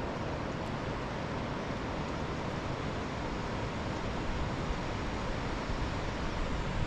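Steady rain falling on a mountainside with wind, an even hiss that does not let up, with wind buffeting the microphone.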